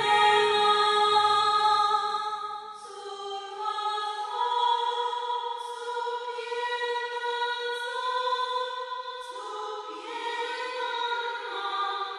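Background music: a choir singing slow, long-held chords that change every few seconds.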